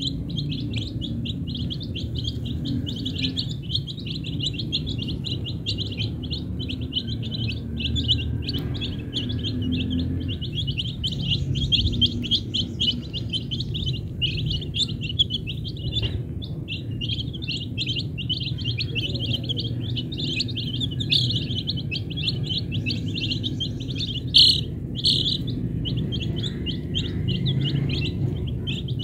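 A flock of young chicken chicks peeping without pause, many short high peeps overlapping, over a steady low rumble. Two sharper, louder peeps stand out about three-quarters of the way through.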